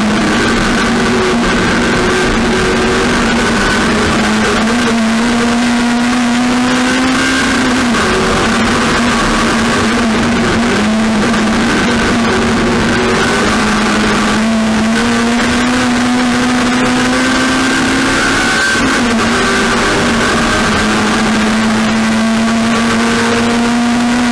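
Race car engine running hard. Its pitch climbs slowly and dips briefly about every five to six seconds.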